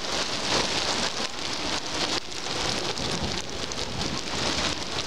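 Heavy rain mixed with small hail falling on beach sand: a dense, steady hiss of countless tiny impacts.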